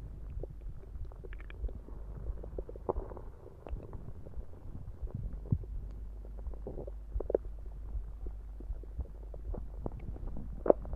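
Human stomach gurgling and growling after drinking soda. A steady low rumble runs under many short, bubbly gurgles and pops, with the loudest pop near the end.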